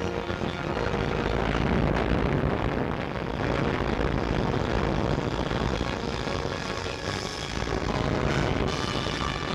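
Propeller-driven fighter planes' piston engines running at high power as they take off, a steady, dense engine drone.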